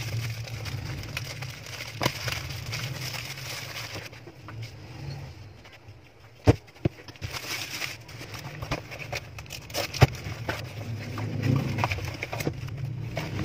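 Plastic mailer bag and bubble wrap rustling and crinkling as a parcel is unpacked by hand. Several sharp clicks and knocks come through it, the loudest about six and a half seconds in and at ten seconds, over a steady low hum.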